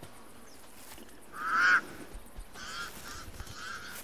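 Pied crows cawing in alarm: one long caw about a second and a half in, then a run of shorter caws.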